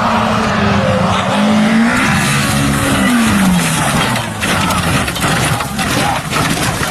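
Rally car at speed: the engine note climbs and then drops about two to three seconds in, over loud tyre and road noise. From about four seconds on, a run of sharp clicks and knocks comes through.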